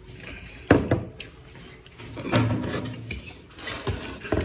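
Tableware clattering: a metal spoon knocking and scraping against a ceramic plate and steel bowls. A sharp knock a little under a second in is the loudest sound, with a few smaller clinks after it.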